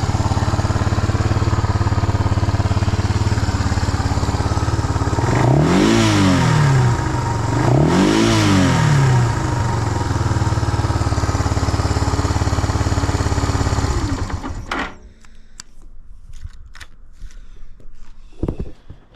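Suzuki Goose 350's single-cylinder four-stroke engine idling steadily, blipped twice in quick succession around six and eight seconds in, each rev rising and falling back cleanly to idle. About fifteen seconds in the engine is switched off and stops, leaving a few faint clicks.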